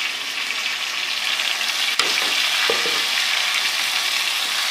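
Onion and tomato masala frying in hot ghee, the tomato puree just added: a steady sizzle with a spoon stirring and scraping the pan. A sharp knock comes about two seconds in, after which the sizzle is a little louder.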